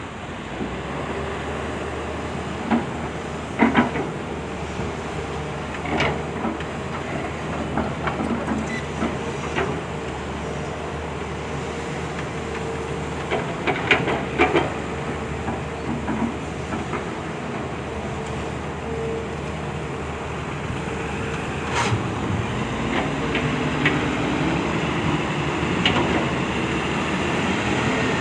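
Volvo hydraulic excavator's diesel engine running steadily with its hydraulics working, broken by sharp clanks now and then, several in quick pairs. Near the end the engine pitch rises in steps as it is worked harder.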